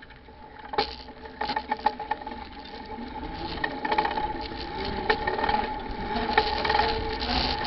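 A Sharper Image HD action camera rattling and knocking in its bike mount as the bike rides over a paved road, with a steady hum underneath. Wind rumble builds as the bike picks up speed, and the whole sound grows louder.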